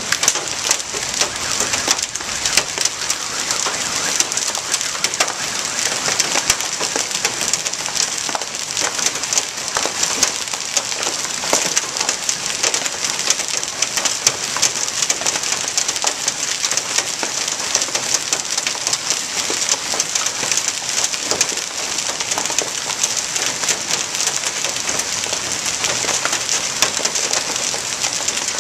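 Hail and rain pelting a truck: a steady, dense hiss of rain with many sharp clicks and taps of hailstones striking the vehicle's body and the tarp over its windshield.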